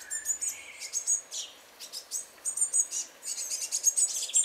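Blue tit fledglings giving rapid, very high, thin begging calls: many short chirps in quick succession, growing busier in the second half.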